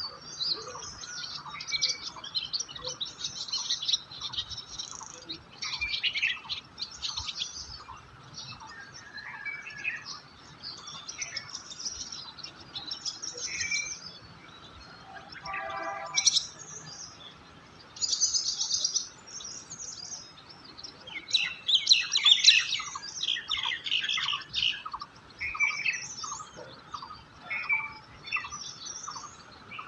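Several songbirds chirping and twittering in an overlapping chorus, with one short note repeating evenly about twice a second underneath. A brief harsh, buzzy call stands out about halfway through.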